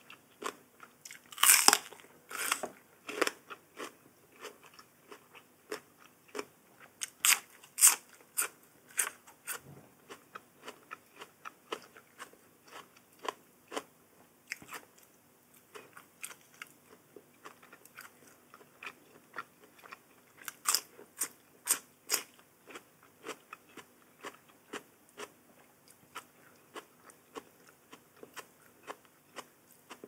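A person eating close to the microphone: crisp crunching bites and wet chewing, with irregular clicks and smacks. The loudest crunches come about a second and a half in, again around seven to eight seconds, and around twenty-one seconds.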